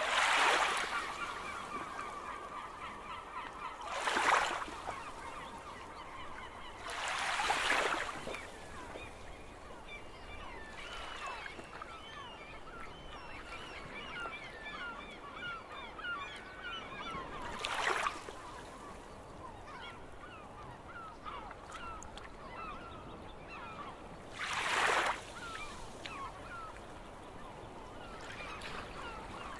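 A large flock of seagulls calling continuously, many short squawks overlapping in a dense chorus. Sea waves wash in over it five times, each swell lasting about a second.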